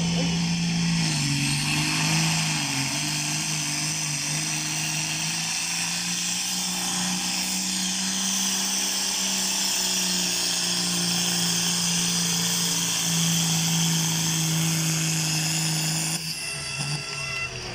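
Diesel John Deere tractor engine running flat out under heavy load as it drags a tractor-pulling sled, a steady engine note with a high whine over it. The note sags briefly about a second in, then holds; near the end it drops off as the pull ends.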